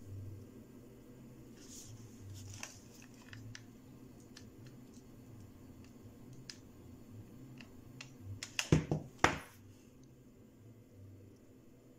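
Quiet handling noise at a worktable: faint scattered ticks over a low hum, then a short burst of louder knocks and rustling about nine seconds in as hands press on the gathered fabric of a baby turban.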